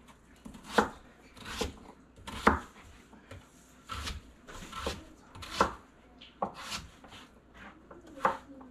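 Kitchen knife chopping peeled raw kohlrabi into cubes on a cutting board: a steady series of separate cuts, about one a second, each ending in a knock of the blade on the board.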